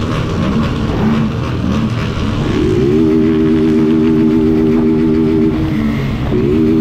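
Motorcycle engines in a group ride: a few short throttle blips, then about two and a half seconds in one engine revs up and is held at a steady high pitch for about three seconds. It drops off and revs up and holds again near the end.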